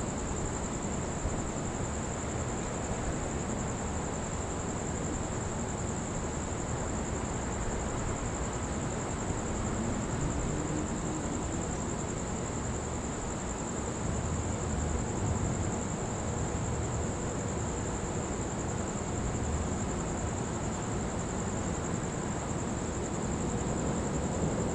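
Steady low outdoor rumble on a stormy night, with a constant thin high-pitched tone over it and no distinct thunderclap.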